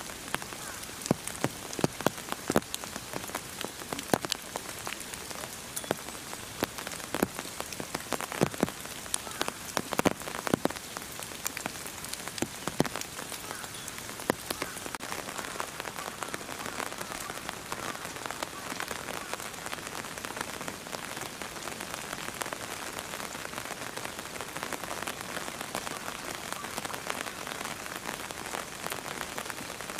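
Steady rain falling, a constant hiss with many separate drops ticking sharply in the first half, settling into a denser, even patter later.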